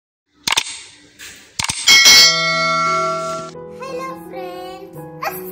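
Subscribe-button intro sound effects: a sharp click, a second click about a second later, then a bright bell ding that rings out and fades. A short music jingle follows.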